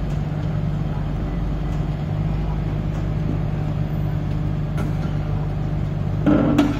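Sunward rotary drilling rig's diesel engine running steadily under load while it hoists the kelly bar. A brief louder burst of sound comes near the end.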